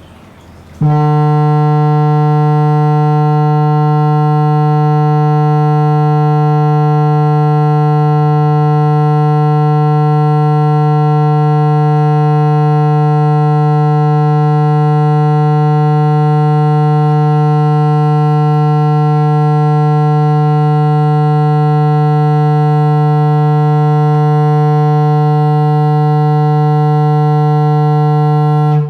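Loud electronic test tone played through speakers: one low, buzzy pitch with a full set of overtones, held dead steady. It switches on suddenly about a second in and cuts off at the end.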